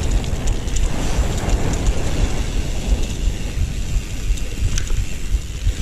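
Mountain bike coasting down a wet dirt trail: a steady rough rumble of knobby tyres and wind on the handlebar-mounted camera, with occasional clicks and rattles from the bike as it goes over bumps.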